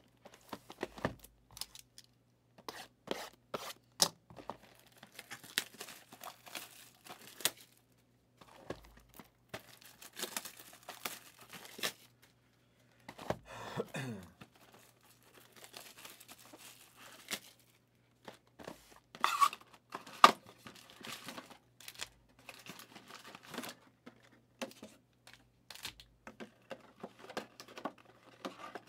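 Plastic shrink wrap being torn off a sealed hobby box of trading cards and crinkled, with scattered clicks and taps as the cardboard boxes are handled.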